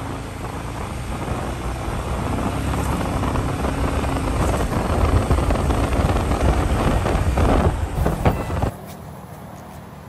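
Wind buffeting the microphone mixed with a motor vehicle's engine, growing louder, then cutting off abruptly about nine seconds in to a quieter steady rush.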